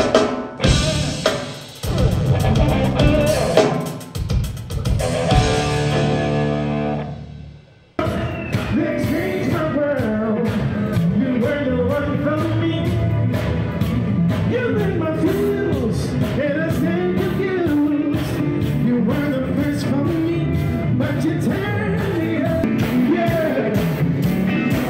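Live band rehearsing with drums and singing. The first stretch ends in a held chord that fades out, then an abrupt change about eight seconds in to a steady song with lead vocals.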